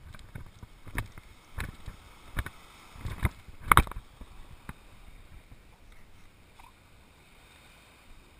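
Footsteps crunching on sand and the knocks they give a body-worn camera, about one every half to one second, the loudest about four seconds in, over a low wind rumble. They die down after about five seconds.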